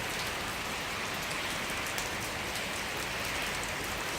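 Heavy rain pouring down steadily, a dense hiss of rainfall with many small drop ticks scattered through it.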